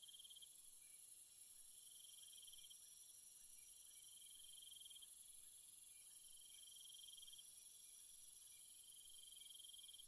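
Faint insect chorus: a high trill comes in bouts of about a second or so with short gaps between them, over a steady high-pitched drone of further insects.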